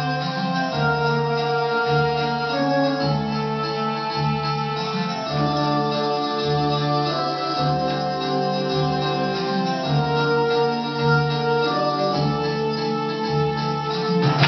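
Music led by a sustained organ-like keyboard: held melody notes over a low bass note that pulses about once a second.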